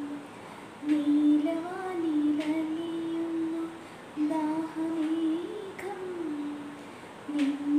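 A woman humming the song's melody without words, in three long held phrases with short breaks between them.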